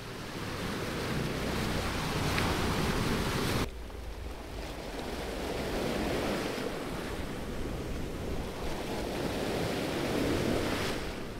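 Small waves breaking and washing up on a pebble beach, with wind rumbling on the microphone. The sound drops suddenly about four seconds in, then carries on at a lower level.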